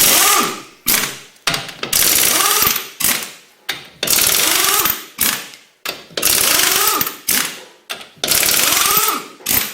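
Impact wrench hammering in bursts of about a second, roughly every two seconds, each rising and falling in pitch, with short blips between: lug nuts being spun off to remove a wheel.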